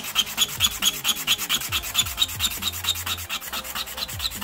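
End of a hardwood dowel scrubbed against a sheet of sandpaper in quick, even, rhythmic strokes: sanding smooth a freshly cut end.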